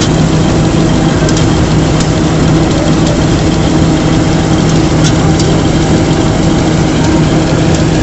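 Kartar combine harvester's diesel engine and cutting and threshing machinery running steadily under load while harvesting rice: a loud, even drone with a steady hum and a few light ticks.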